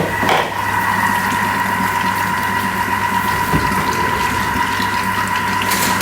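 Thermomix motor running on speed 3 with a steady whine, warming oil in the bowl. There are brief knocks near the start and again near the end.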